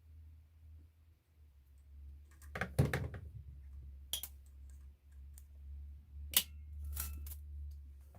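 Scattered sharp clicks and taps of small RC car parts being handled: shock absorbers and their plastic and metal mounting hardware. A low steady hum runs underneath.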